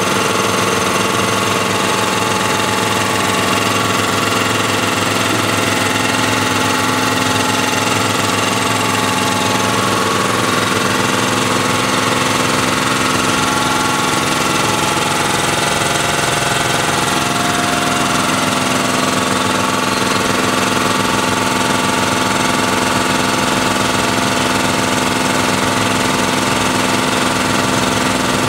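GKI-Illinois WB30 3 hp twin-cylinder V-type cast iron air compressor pump, belt-driven, running steadily at about 1000 RPM with a smooth, even sound.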